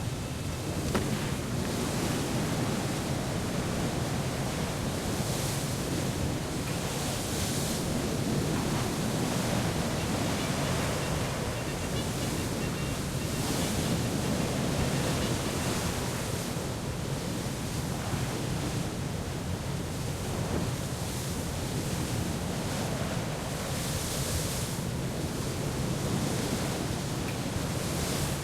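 Steady rush of sea waves and wind with a low rumble underneath, the hiss swelling every several seconds.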